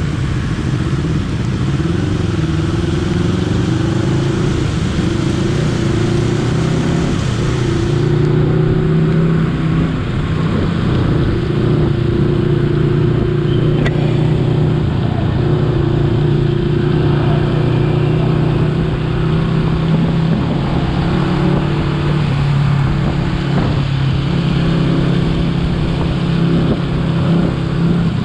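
Honda CBR250RR parallel-twin engine running while the bike is ridden, mostly at a steady engine speed with small rises and falls in pitch, over a steady hiss.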